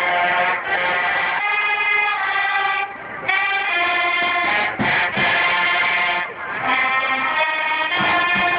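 Marching band brass playing long held chords in phrases, with short breaks about three seconds in and again past six seconds.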